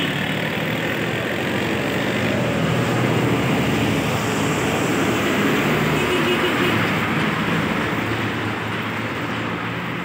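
Steady street traffic noise, with vehicle engines running and passing.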